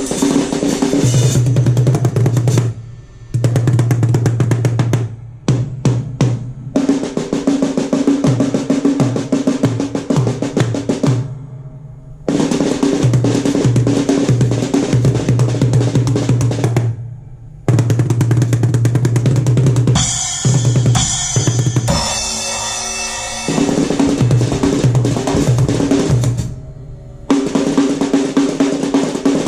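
Drum kit voiced with the "Indian Subsonic Bass" sound kit, played in dense rolls and fills over a deep, pitched bass tone, breaking off briefly about four times.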